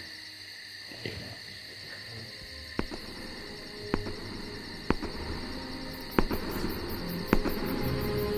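Quiet, tense underscore: a steady high hiss with sharp ticks about once a second, and low held notes coming in about halfway through and slowly growing louder.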